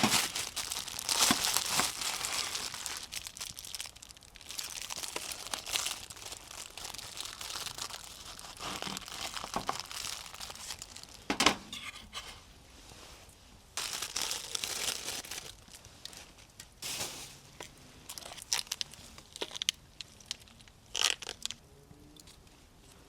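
Irregular bursts of crinkling and rustling, like something being crumpled or handled, with a few sharp clicks among them; the bursts come in clusters and die away near the end.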